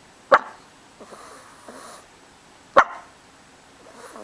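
Small dog with the hiccups giving two short, sharp, hiccup-like yips about two and a half seconds apart, sounds that could pass for either a bark or a hiccup.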